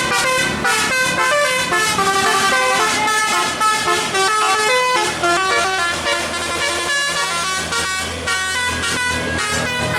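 Bus 'telolet' musical air horn playing a fast melody of short, stepped notes, several horn trumpets sounding together.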